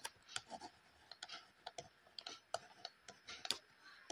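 A stylus tapping and scratching on a tablet screen while handwriting: a faint string of irregular sharp clicks, about three a second.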